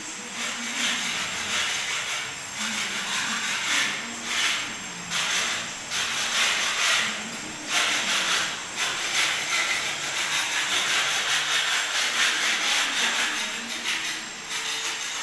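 A plastic broom sweeping a bare concrete floor: repeated brushing, scraping strokes about one a second, running almost without break in the second half.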